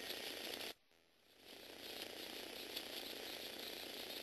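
Lego Technic walking robot running: its Power Functions motor whirring and the plastic gears and leg linkages rattling steadily. The sound cuts out briefly about a second in, then builds back up.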